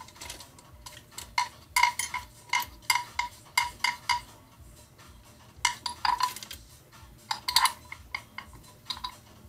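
A hex key and loose engine parts clinking against the aluminium cylinder head of a Suzuki DRZ400 engine being dismantled by hand: a quick run of light metallic clicks, with louder clusters about six and seven and a half seconds in.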